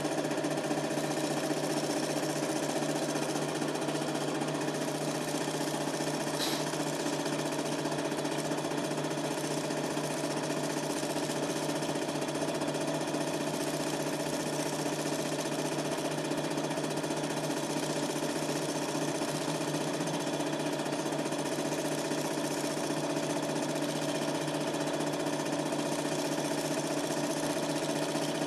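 Super 8 film projector running steadily, its motor and film transport making an even mechanical whirr with several steady tones, picked up in the room by a camcorder microphone. A single brief tick about six seconds in.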